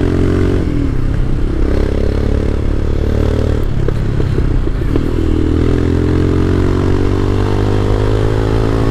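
Royal Enfield Himalayan's single-cylinder engine thumping under way, its pitch dropping about half a second in, then climbing as the bike accelerates. A patch of irregular clatter breaks in around four to five seconds in, and then the engine climbs steadily again.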